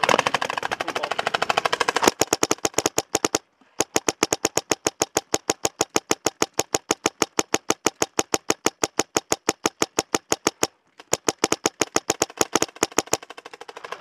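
Dye DM14 electronic paintball marker firing rapidly, long strings of evenly spaced shots at about ten a second, broken by two short pauses. The first couple of seconds are a denser clatter of shots.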